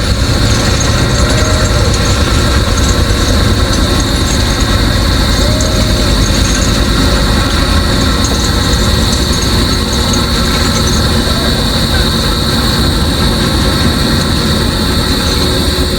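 Heavy construction machinery's diesel engine running steadily with a low rumble, working to pull a bore casing out of the ground.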